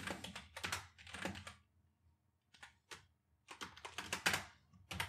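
Computer keyboard typing: quick runs of keystrokes, broken by a pause of about a second partway through, then a few single key presses and another run.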